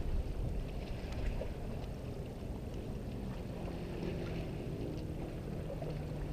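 Steady low rumble of wind and water around a small fishing boat on open water, with faint scattered ticks and splashes.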